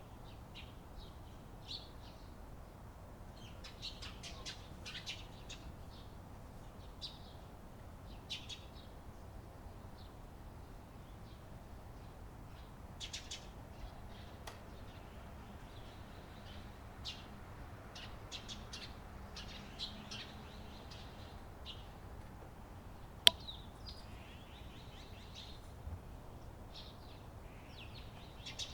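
Eurasian tree sparrows chirping: short, quick chirps coming in scattered clusters, over a low steady background hiss. One sharp click stands out about two-thirds of the way through.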